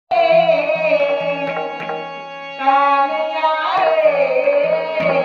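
Marathi devotional bhajan (gaulan) music starting abruptly: singing over a steady held accompaniment, with a few hand-drum strokes.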